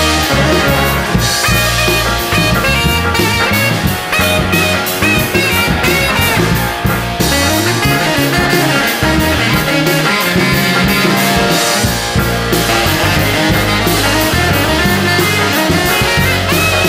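A saxophone solo over a rock band's rhythm section of drums, electric bass, electric guitar and keyboards, with no singing.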